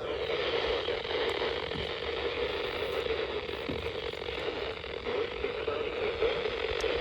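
Weather radio receiver giving a steady static hiss with no broadcast voice coming through. This is the sign of a weak signal, with two stations fighting on the same channel as the antenna is moved.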